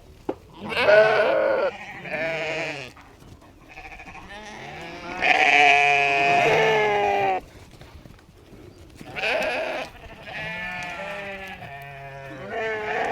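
Sheep bleating, a string of separate calls from several animals. The longest and loudest call comes about five seconds in and lasts a couple of seconds.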